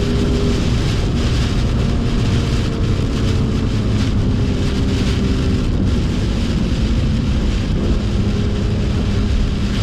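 BMW M2's turbocharged straight-six running at a fairly steady pitch on a wet track, under a constant hiss of rain and tyre spray from the soaked road. The engine note is clearest at the start and then sinks into the spray noise.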